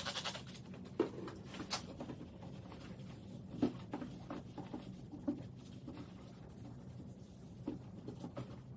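Faint rubbing and scrubbing while cleaning dirt off the truck door where the outside handle came out, with a few light clicks and knocks scattered through.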